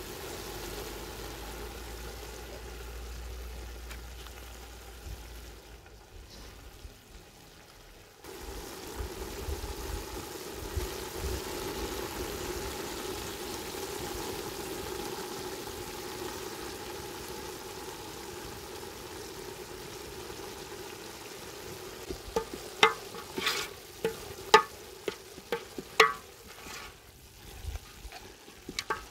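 Diced green beans and vegetables sizzling in oil in a large metal pot. Near the end a wooden spoon stirs them, with a run of sharp knocks and scrapes against the pot.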